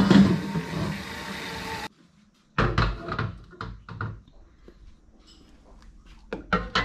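A steady rushing noise that cuts off abruptly about two seconds in. It is followed by knocks and clunks of a steel wok being set on a gas stove, and near the end a ceramic bowl knocking against the wok as it is lowered in.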